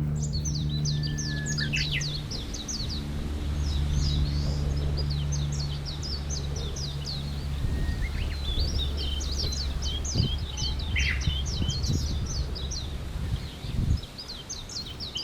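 Small birds chirping: many short, quickly falling high chirps in rapid runs, with a few longer calls, over a steady low hum.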